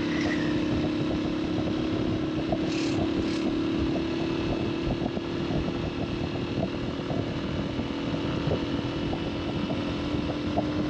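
Motorcycle engine running steadily at riding speed, with a rush of wind and road noise. Two brief high-pitched sounds come about three seconds in.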